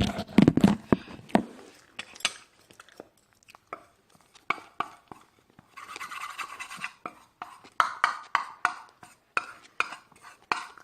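Cutlery clinking and scraping on a plate: a string of irregular taps and clicks, with a longer scrape about six seconds in.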